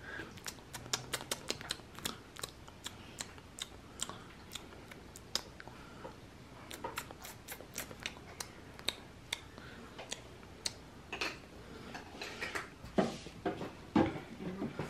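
Quiet, irregular small clicks and taps, two to four a second, as a plastic toy baby bottle is worked at a baby doll's mouth. A few faint voice sounds come near the end.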